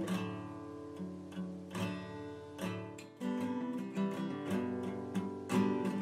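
Background music: acoustic guitar, notes picked and strummed, each ringing and fading.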